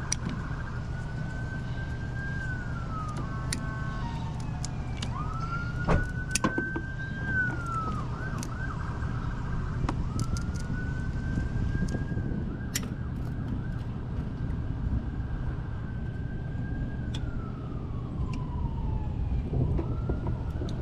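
Emergency-vehicle siren going through slow rising-and-falling wails and stretches of fast yelping, over a steady low vehicle engine rumble, with a few sharp knocks, the loudest about six seconds in.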